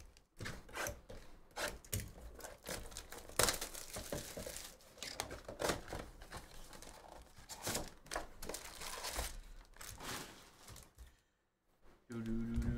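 A cardboard Topps Chrome baseball hobby box being torn open by hand and its packs of cards pulled out and set down: irregular crinkling, tearing and rustling with sharp little snaps, stopping about a second before a voice comes in near the end.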